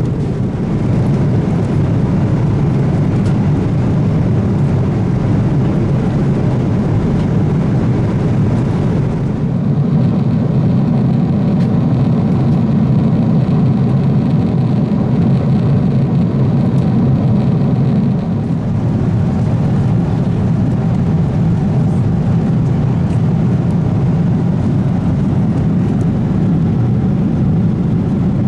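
Boeing 777-200ER cabin noise in cruise: a steady, loud, low rushing drone of airflow and engines. It turns duller between about nine and eighteen seconds in.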